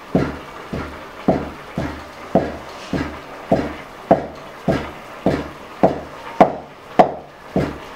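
Raw peanuts being pounded in a wooden mortar with a long wooden pestle: a steady run of dull wooden thuds, about two strokes a second.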